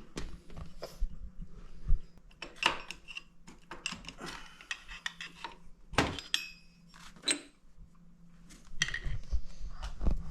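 Hand tools and small metal engine parts clinking, clattering and knocking while the side of a 2006 Yamaha Kodiak 450 ATV engine is worked on by hand. The sounds come irregularly, with a sharp knock about two seconds in and another about six seconds in, over a faint steady hum.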